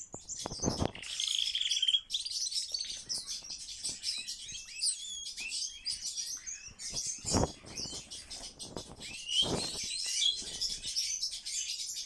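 Tame common starling singing at close range: a continuous, varied jumble of short whistles, chirps, clicks and rattles. A few low thumps come near the start and twice later on.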